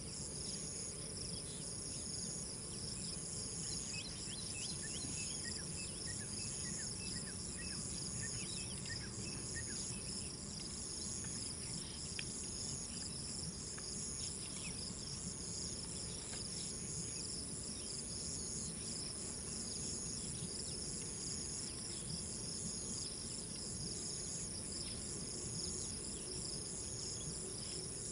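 Steady chorus of insects: several high-pitched trills at once, one of them pulsing on and off about once a second, over a low steady rumble. Faint short chirps come and go in the first third.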